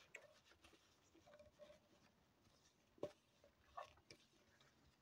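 Near silence with a few faint clicks and taps from a metal spoon and plastic mixing bowl being handled, with two slightly sharper knocks about three seconds in and just before four seconds.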